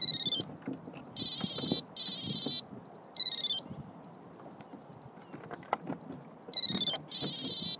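High, chirping electronic tones in short bursts and longer warbling runs, in an irregular pattern like a ringtone melody, over a low rumble of wind and water.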